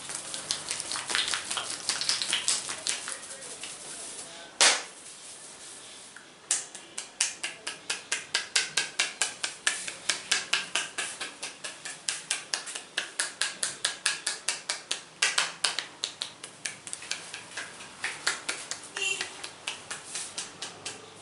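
Percussive head massage: hands slapping and tapping on the scalp. It starts with irregular rubbing and tapping, then settles into a fast, even run of sharp slaps at about four to five a second. A single loud sharp snap comes about four and a half seconds in.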